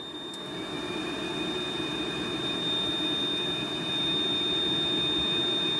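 Newly replaced cab air-conditioning blower fan of a Yanmar VIO55-5B excavator running: a steady rush of air with a faint motor whine, growing louder over the first few seconds and blowing a strong breeze.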